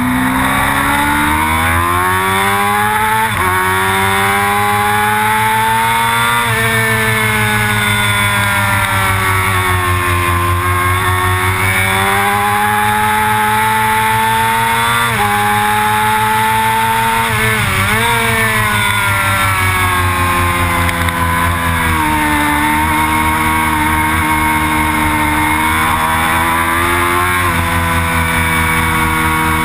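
Motorcycle engine at full track pace, the pitch climbing and then dropping sharply at each upshift (twice in the first six seconds, again about halfway), easing off and picking up again, with a quick wobble of downshift blips a little past halfway. Wind rushes over the bike-mounted camera throughout.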